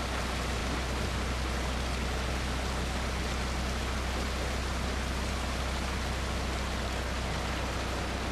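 Steady rush and splash of floodwater thrown up by a truck's wheels as it drives through a flooded street, over a steady low rumble.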